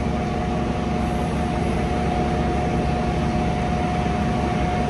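Fire apparatus diesel engines running steadily, a low rumble with a constant high whine held over it.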